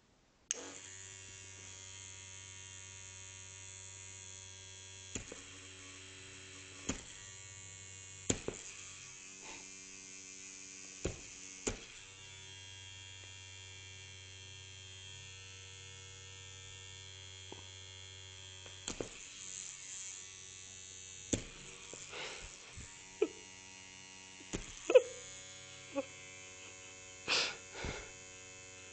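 Battery-powered electric toothbrush starting up about half a second in and buzzing steadily as it vibrates on a fabric couch arm. Scattered sharp knocks and rattles sound over the buzz, the loudest near the end.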